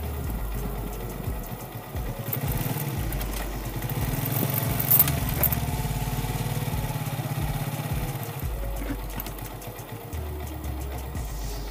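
Motorcycle engine running while the bike rides along the road, with wind rumbling on the microphone. A brief sharp clatter about five seconds in is the loudest moment.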